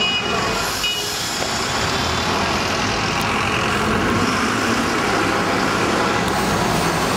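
Steady city street traffic: motor vehicles running and passing, a city bus among them.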